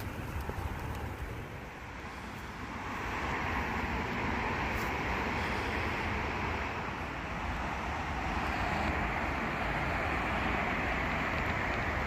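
Wind buffeting the microphone outdoors, with a steady rushing hiss that grows louder about three seconds in.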